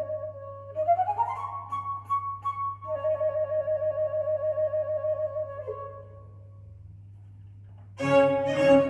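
Music: a slow flute-like melody of long held notes with a sliding rise about a second in, fading out about six seconds in. After a short lull, a louder, fuller passage with bowed strings begins near the end.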